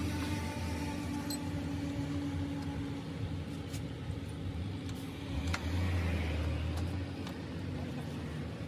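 A steady low motor hum, with a few sharp metallic clicks as brake shoes and springs are fitted by hand onto a truck's rear drum-brake backing plate.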